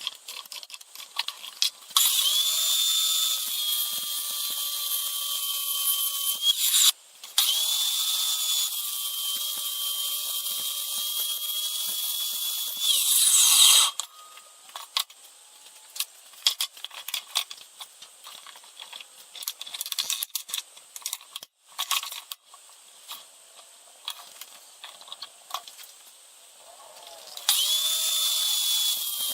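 Small electric drill-driver running in three runs of several seconds each, with a steady whine that winds up at the start of each run. Between the runs come scattered clicks and rattles of parts being handled.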